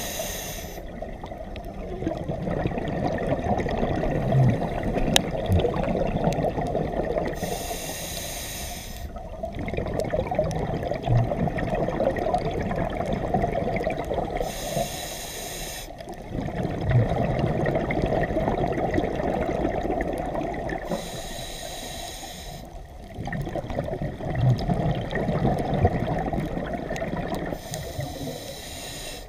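Scuba diver breathing through a regulator underwater: a hissing inhale about every six to seven seconds, five in all, with a steady bubbling of exhaled air between them.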